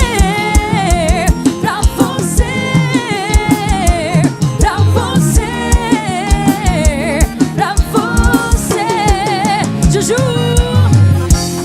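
Live band music: a melodic lead line with vibrato over a steady drum beat and bass.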